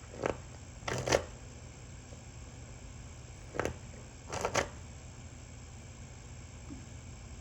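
Tarot cards being handled: a few short flicks and taps in small clusters, as cards are drawn from the deck and laid down, over a steady low hum.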